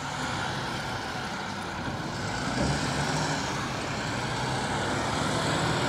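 Volvo articulated dump truck's diesel engine running with its bed raised after tipping a load of sand, steady and slowly growing louder.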